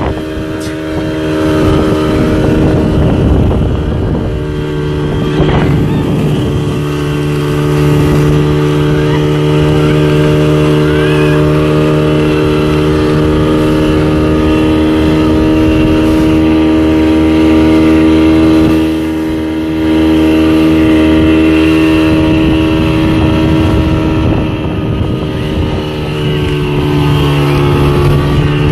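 Speedboat engine running at a steady high speed while towing an inflatable donut ride, over wind and the rush of the wake. The note dips briefly about two-thirds through and sags slightly in pitch near the end.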